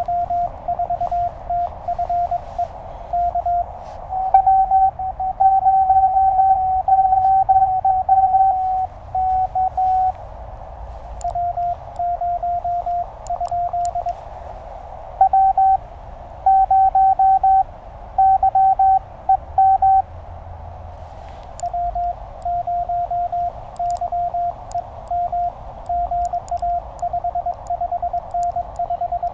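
Morse code (CW) tones from a Penntek TR-35 QRP transceiver, working 20 meters. Incoming signals are heard over a steady hiss of band noise, and twice the operator's own keying comes through as a slightly higher, louder sidetone.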